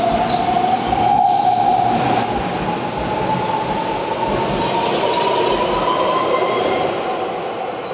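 Keihan 13000 series electric train accelerating, its inverter and traction motors giving a whine that rises slowly in pitch, over the rumble of wheels on rail.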